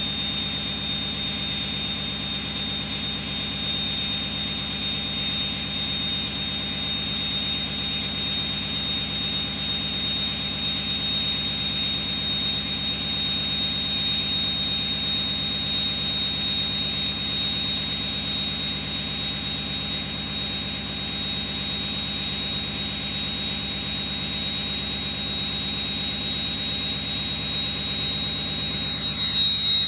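Ford 6.0 Power Stroke V8 turbo diesel held at high idle after a cold start, with a steady high-pitched whistle from its Stage 1 Garrett Powermax turbocharger over the engine's low, even running.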